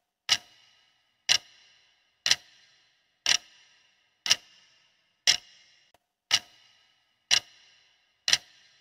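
Clock-tick sound effect of a countdown timer: nine sharp ticks, one each second, counting down the seconds.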